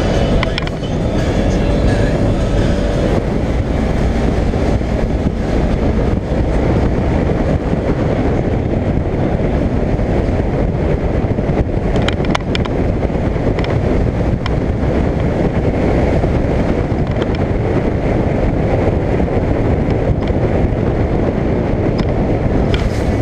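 Polaris General XP 1000 side-by-side driving steadily along a sandy dirt trail: its engine running with tyre and drivetrain noise, buffeted by wind on the microphone. A few sharp clicks come about halfway through.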